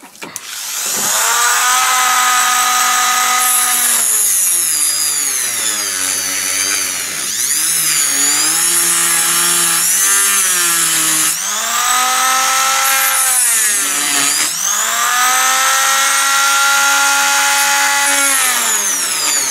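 Rotary multi-tool with a small cut-off disc cutting into the plastic housing of a car windscreen washer pump. The motor's whine starts about a second in and runs on. Several times it sags in pitch as the disc bites and climbs back as it frees.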